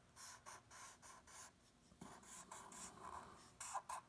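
Short, quick drawing strokes on paper, a run of about a dozen faint scratchy strokes as fur lines are sketched, with a short pause partway through.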